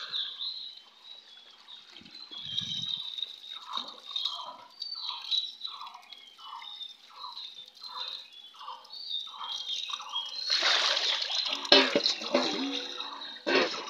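Running tap water pouring and splashing into a steel bowl of water as raw chicken pieces are rinsed by hand. A run of short, evenly spaced sounds about two a second comes in the middle, and the splashing gets louder near the end.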